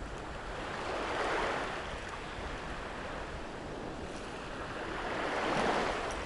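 Shallow sea water washing and swishing, swelling twice: once about a second in and again near the end. A low wind rumble sits underneath.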